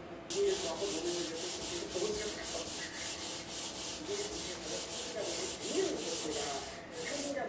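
Sandpaper rubbed back and forth by hand on a walnut frame, a quick even rhythm of about four strokes a second, with a brief pause near the end.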